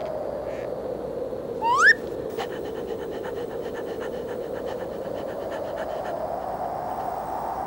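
Cartoon sound effects over a steady airy hiss: a short rising whistle-like squeal about two seconds in, followed by a quick run of faint ticks lasting a few seconds.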